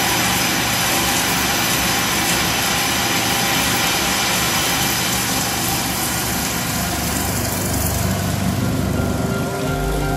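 A 100 mm face cutter on a DBM 2540 double column machining center's spindle is milling titanium, giving a steady dense cutting noise as chips and coolant spray off the work. Music with held tones comes in just before the end.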